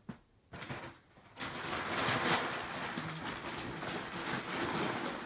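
Packaging being handled and unwrapped by hand: a couple of sharp clicks, then a steady rustling and scraping that sets in under a second in.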